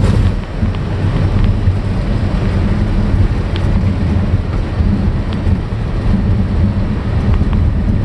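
Boeing 757-300 flight deck during the landing rollout: a loud, steady, low rumble of engines, airflow and runway.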